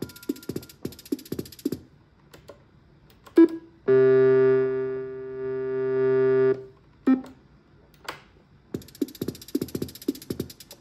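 Electronic musical instrument demo: short rhythmic drum-machine-style hits, then a single sustained buzzy synth tone of about two and a half seconds that dips and swells in level, then the rhythmic hits start again.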